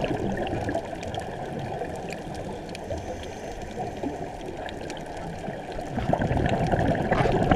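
Muffled underwater noise heard through a camera's waterproof housing: a steady rushing with scattered faint clicks, growing louder and rougher near the end.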